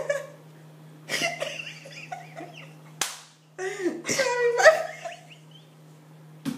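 A woman laughing in wordless bursts, with a single sharp smack about three seconds in.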